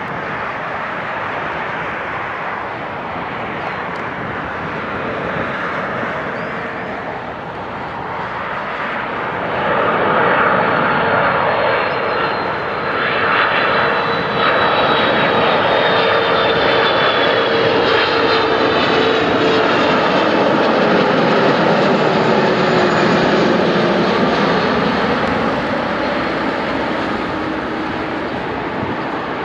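Airbus A330-300 airliner on landing approach, its two Pratt & Whitney PW4000 turbofans running. The jet noise grows louder about ten seconds in as the aircraft comes closer. Whining tones then fall slowly in pitch as it goes by.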